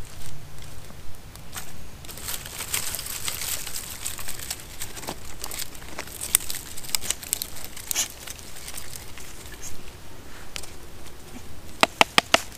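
Freshly lit campfire of fatwood and small sticks crackling, with scattered sharp pops and snaps as the kindling catches. A quick run of louder snaps comes near the end.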